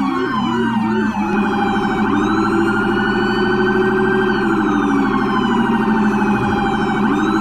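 Police car siren: a few quick up-and-down yelps over the first second or so, then a slow wail that rises, holds, falls and starts rising again near the end, over a steady low hum.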